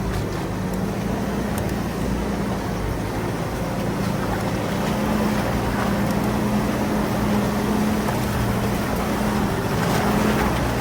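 A vehicle's engine running steadily, with a constant low hum under an even rumble.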